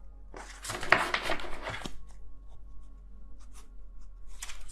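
A deck of tarot cards being shuffled by hand: a scratchy run of card noise in the first couple of seconds and a shorter burst near the end.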